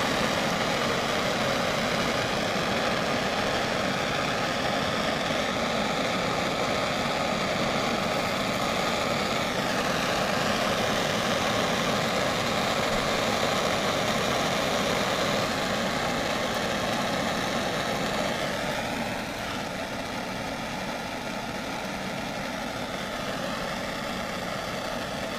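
Propane torch flame burning steadily with a continuous rushing noise while it heats a copper sweat joint for soldering. The noise drops a little about two-thirds of the way through.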